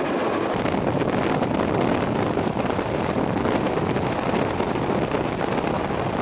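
Steady wind and road noise of a car driving along at speed, with wind buffeting the microphone.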